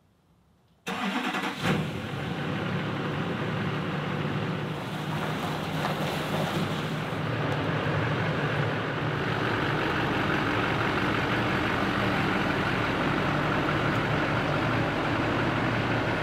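GMC pickup truck's engine running at low speed as the truck creeps forward. The sound cuts in abruptly about a second in and then holds as a steady engine drone.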